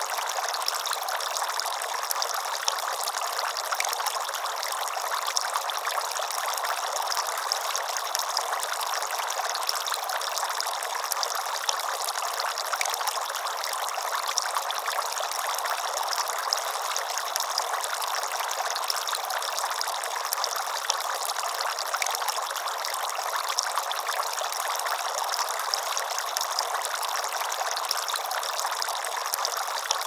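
Water from a Sunnydaze Classic Tulip three-tiered outdoor fountain, spilling over the edges of its tiers and splashing into the basins below. The trickling and splashing is steady and unchanging.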